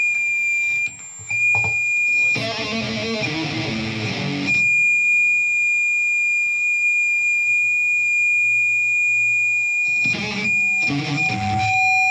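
Steady high-pitched audio feedback squeal ringing through the band's sound system. It is broken by bursts of electric guitar chords about two seconds in and again near the end, when a second, lower feedback tone joins.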